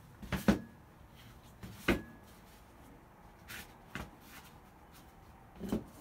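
Short pieces of weathered wood being pulled off a stack and set down on a cardboard-covered table: about five separate wooden knocks and clacks, the loudest about half a second in.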